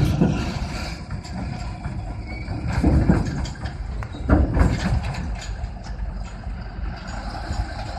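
Heavy vehicle engines running with a low rumble, swelling louder twice, about three and four and a half seconds in.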